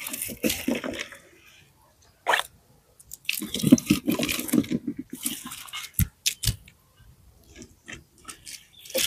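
Dry garden balsam plants rustling and crackling as they are handled and pulled up, in uneven bursts with a couple of sharp snaps about six seconds in.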